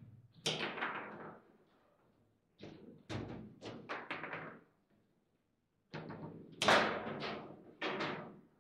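Foosball table in play: hard knocks and clacks of the ball and the rods against the plastic players and the table, coming in three quick flurries with short pauses between them.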